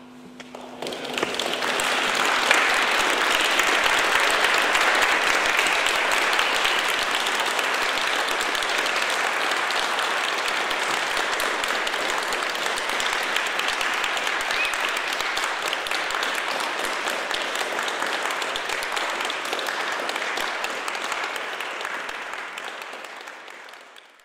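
Audience applauding at the end of a live electronic music set, rising in about the first second as a low held electronic tone dies away. The applause holds steady, then fades out near the end.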